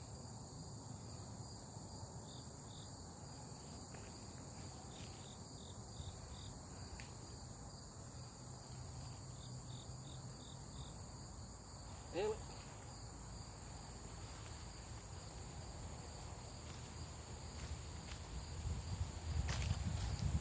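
Steady high-pitched chorus of crickets and other insects. A short rising squeak about twelve seconds in, and footsteps rustling through dry leaves near the end.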